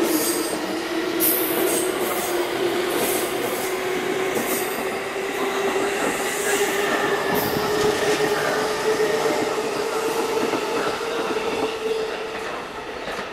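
JR East E233-3000 series electric train departing and accelerating past, its traction motors whining in a tone that climbs slowly in pitch, over the rattle of wheels on rail joints and short high squeals. The whine stops and the sound drops away near the end as the last car clears.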